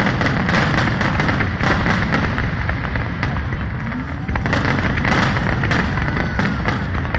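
Aerial fireworks bursting in quick succession: many sharp bangs and crackles over a continuous rumble.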